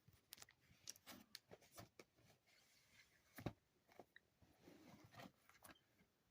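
Faint crackling and clicking of DVD packaging being handled, with one sharper click about three and a half seconds in.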